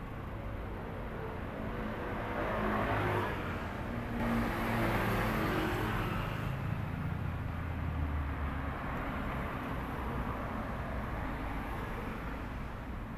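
Road vehicle engine and road rumble that swells about two seconds in, stays strong for several seconds with a low engine note shifting under it, then settles back to a steady rumble.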